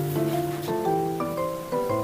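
Background music: a gentle instrumental tune of held notes, the melody and chords changing every half second or so.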